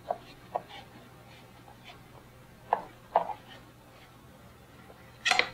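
Knife sliding flat along the skin of a salmon fillet on a plastic cutting board while the skin is pulled away: a few soft, scattered knocks and scrapes, with a louder scrape near the end.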